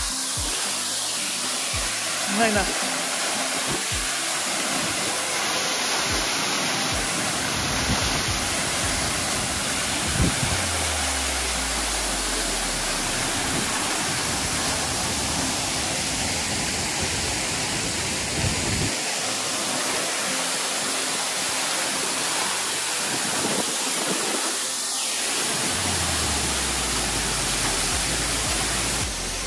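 Waterfall close by: a loud, steady rush of falling water, with a couple of brief low rumbles.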